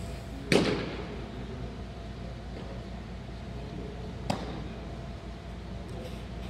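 Baseball throwing session in a large echoing gym: a loud sudden thud with a ringing tail as the ball is thrown, then a sharp pop about four seconds later as the return throw smacks into a leather glove.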